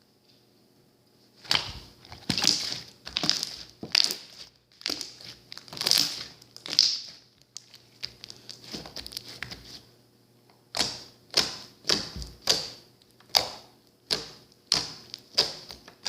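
Slime being squished and pressed by hand: a series of short, sticky squishes and crackles. It starts after a second and a half of quiet, eases off in the middle, then comes back as a quicker run of squishes about every half second.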